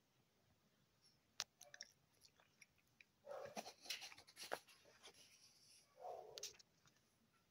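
Faint paper rustling and a few sharp clicks as the pages of a printed magazine are handled and turned, the busiest rustle about halfway through.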